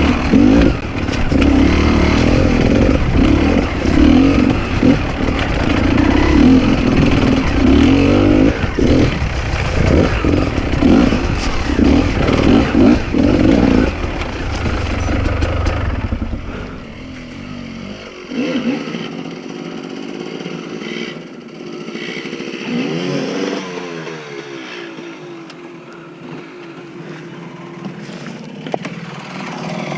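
Enduro dirt bike engine revving in rapid throttle bursts while riding. About halfway through it turns quieter, with lower, steadier running and one further rev.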